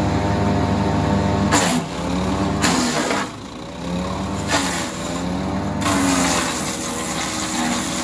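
6.5 hp wood chipper with a Loncin single-cylinder petrol engine running while a green branch is fed in: the blades chip the wood in short bursts, about one and a half and three seconds in and again near the end. Between bursts, the engine's pitch sags under the load and picks back up.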